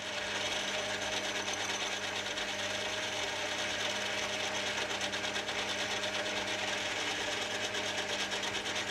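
Metal lathe running with a steady hum and whine while a hand file rasps against a small 1045 steel pin spinning in the collet chuck, breaking its hard corners.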